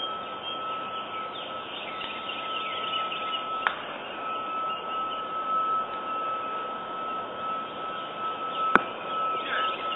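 Outdoor ambience through a golf-course surveillance camera's microphone: a steady high tone with chime-like chirps over a low hiss, and two sharp clicks, about four seconds in and again near the end.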